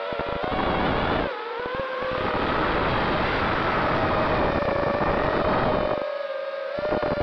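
Quadcopter motors and propellers whining, with several tones that slide down and up as the throttle changes, over heavy wind buffeting on the onboard microphone. The pitch dips and the buffeting cuts out briefly about a second in, then again near the end.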